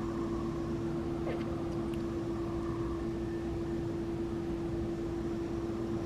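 Steady machine hum carrying one constant mid-pitched tone.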